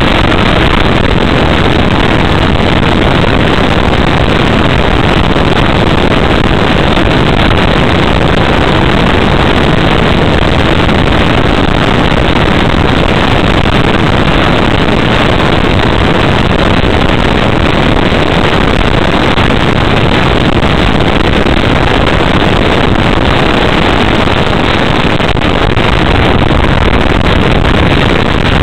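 Sky Surfer RC motor glider in flight, heard through its onboard camera: a steady, loud rush of airflow and motor noise.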